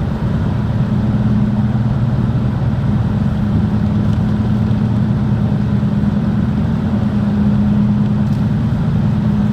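Motor vehicle engine running steadily with a loud, even low hum.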